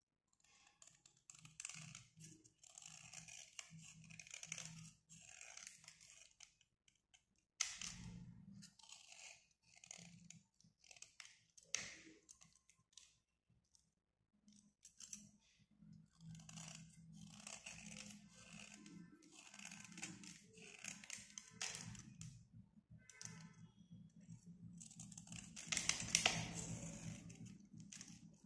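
A utility knife blade scraping the crust off a slate pencil bar in runs of short, rasping strokes, with a couple of sharp clicks in between and the loudest scraping near the end.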